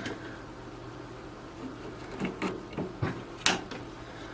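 A few separate light clicks and knocks of small tools and objects being picked up and set down on a workbench. The sharpest click comes about three and a half seconds in, over a faint low hum.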